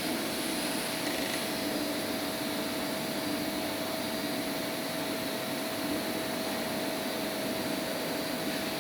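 CNC machine running, a steady motor whir with a constant high hum.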